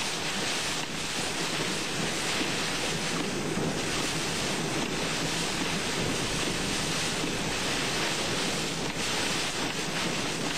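Severe thunderstorm winds, estimated at around 80 mph, with wind-driven rain lashing a moving car, heard from inside: a steady, dense rushing noise with no letup.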